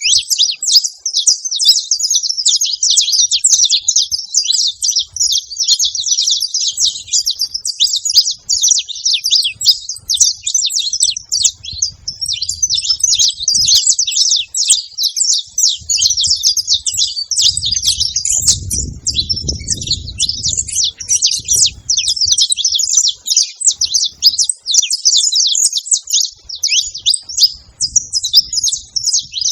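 Several saffron finches singing and chirping together in a dense, unbroken stream of high, rapid notes.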